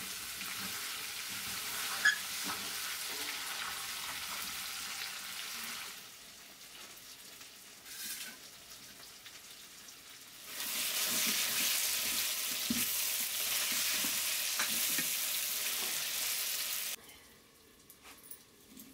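Chicken pieces frying and sizzling in oil in a metal kadai while being stirred with a ladle, with one sharp clink of the ladle on the pan about two seconds in. The sizzle drops away about six seconds in, comes back louder about ten and a half seconds in, and cuts off suddenly near the end.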